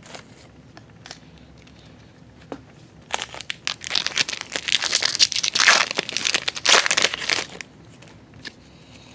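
Plastic wrapper of a pack of baseball cards crinkling loudly as it is handled and torn open, after a few light taps of cards being handled.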